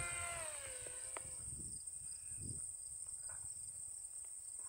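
RC flying wing's motor and propeller whining, its pitch falling as the plane flies past and away, fading out about a second in. A steady high insect chirr, like crickets, runs under it and stays after it fades.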